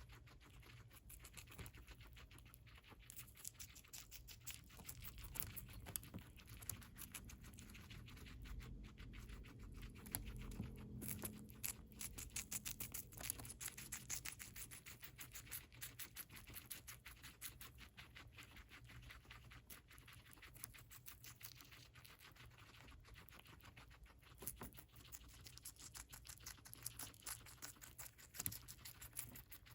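Guinea pig chewing lettuce: many small, quick crunching bites, quiet and close.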